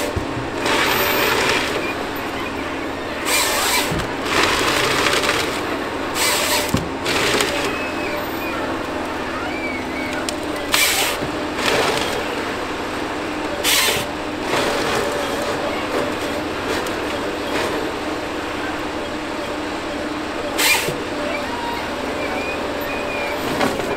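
Ponsse Scorpion King forest harvester working: the engine and hydraulics run steadily while the harvester head's chain saw makes about ten short cuts through a tree stem, bucking it into logs.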